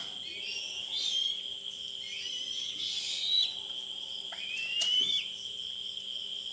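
Steady high-pitched chirring of crickets, with a few short whistled calls over it, one rising in pitch about four to five seconds in.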